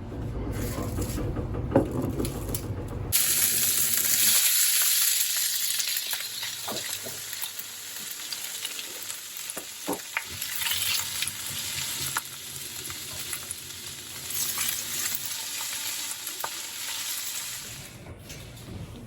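Food sizzling loudly in a hot pan, starting suddenly about three seconds in, with scattered clicks of a utensil stirring it. It is preceded by a low rumble.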